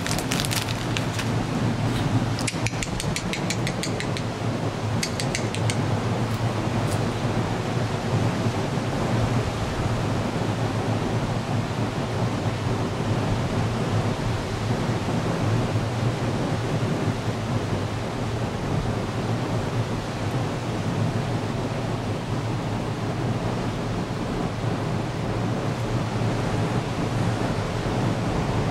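Steady rushing outdoor noise with no clear pitch. It has two short runs of rapid, evenly spaced high-pitched ticks in the first six seconds.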